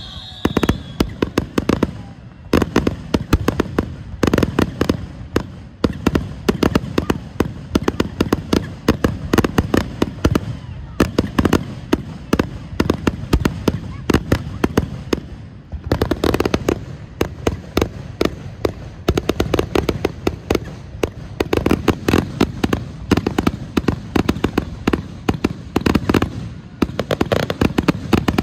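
Fireworks finale barrage: aerial shells bursting in rapid, dense succession, many sharp bangs and cracks a second, with only brief slight lulls.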